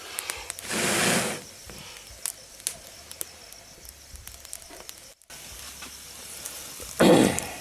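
Wood fire in a rocket stove crackling with scattered sharp pops over a low hiss, broken by two short loud rushes of noise, about a second in and near the end.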